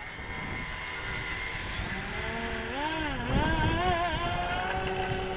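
Electric motor and propeller of a FlyZone Cessna Corvalis 350 RC model plane in flight: a whine whose pitch swoops up and down between about two and four seconds in, then settles to a steadier tone near the end. Wind rumbles on the microphone underneath.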